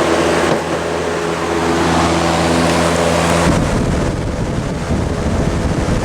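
Vintage General Electric W-26 box fan running on high: a steady motor hum with the rush of its plastic blades moving air. About three and a half seconds in, the steady hum gives way to a gusty, fluttering rumble of air hitting the microphone.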